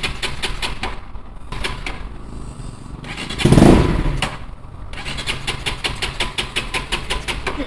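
A Bajaj Pulsar NS200's single-cylinder engine cranking over in several tries, a fast even chugging broken by short pauses, with one short, much louder burst about three and a half seconds in. It is a hard start on a bike that has stood for months, just after its gummed-up carburettor was cleaned.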